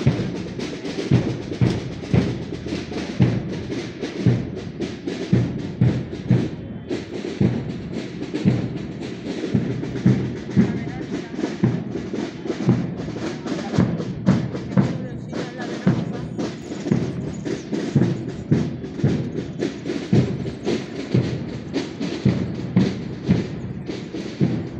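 Drums of a procession band beating a slow march, with a heavy low stroke about once a second and lighter strokes between.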